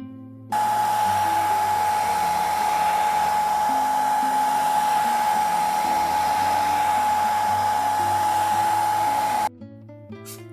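Electric hot-air blower running steadily, a loud rushing hiss with one constant high whine, switched on about half a second in and off shortly before the end. It is warming the phone's back cover to soften the adhesive before the back plate is pressed on.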